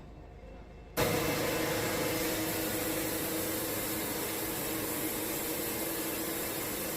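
Wood-Mizer band sawmill running, its band blade cutting through a large, water-soaked cypress log: a steady hiss with an even low hum. It starts suddenly about a second in, after a quiet first second.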